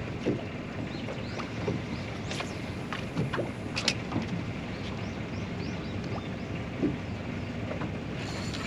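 Water lapping and splashing against a small fishing boat's hull over a steady rush, with a few short knocks scattered through.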